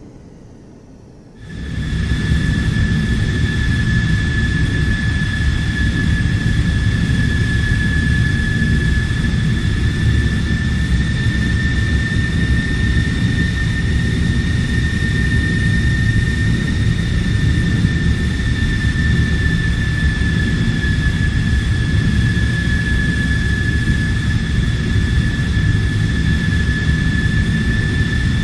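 Jet fighter engine running steadily: a constant high turbine whine over a heavy low rumble. It cuts in abruptly about a second and a half in, after a fading sound.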